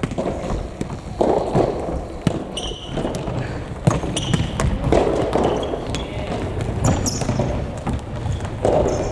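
Futsal being played on a gymnasium floor: the ball thudding off feet and the floor again and again, short high squeaks, and players calling out, echoing in the hall.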